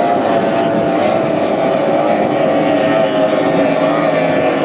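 Formula One tunnel-hull racing powerboats' outboard engines running flat out together, a loud, steady, multi-toned drone that holds without a break.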